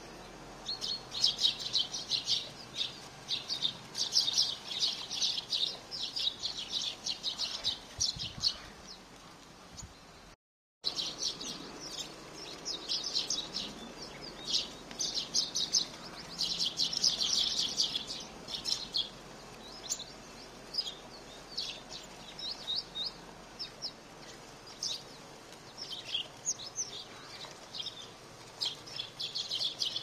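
A flock of sparrows chirping, many short overlapping chirps coming in busy bouts, with the audio cutting out completely for a moment about ten seconds in.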